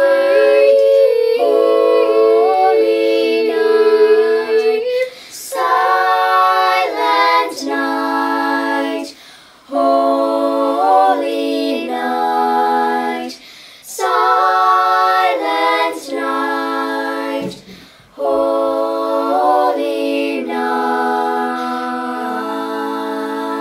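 A small group of voices singing a cappella in several-part harmony, women's voices prominent. They sing slow phrases of about four seconds with short breaths between them, and the last phrase is a held chord.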